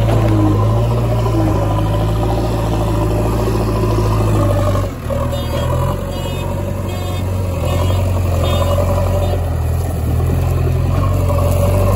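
Heavy diesel engine running steadily under load, its level dipping briefly about five seconds in before it picks up again.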